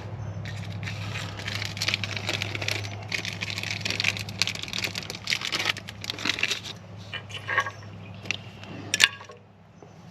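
Plastic packaging crinkling and rustling as parts are handled, then a few light clicks and one sharp tap near the end.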